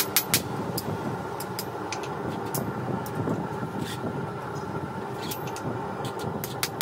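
Hammer blows on a small stump anvil, about five sharp strikes a second, stop just after the start and start again at the very end. In between is a steady forge roar with a few scattered light taps.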